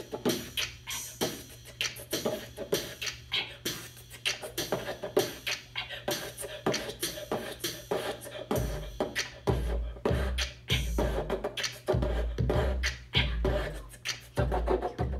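Beatboxing into a handheld microphone: fast clicks and hissing snare-like hits. Deep booming kick sounds join in about eight and a half seconds in.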